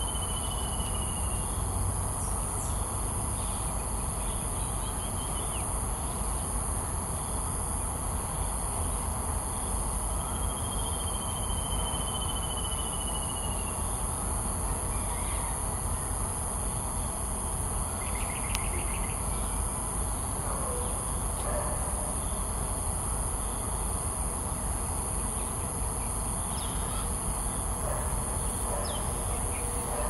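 Steady outdoor ambience: a low rumble with a constant high-pitched hiss above it. Twice, at the start and again about ten seconds in, a bird gives a long, thin, slightly falling whistle.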